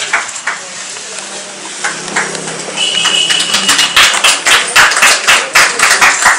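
Several people clapping their hands in a steady rhythm, about four or five claps a second. It starts about four seconds in and is loud. A low steady hum runs through the first half.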